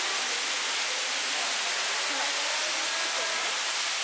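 Steady rushing of falling water, with faint voices of people in the background.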